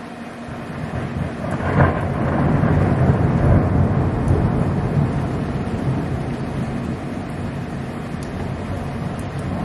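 Thunder: a rumble building from about a second in, a sharp crack just before two seconds, then a loud low rolling rumble that slowly fades.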